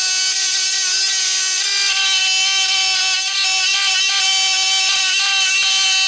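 Sears Craftsman scroll saw running steadily, its blade cutting a notch in an oak leg piece: a constant high-pitched motor whine over the hiss of the cut.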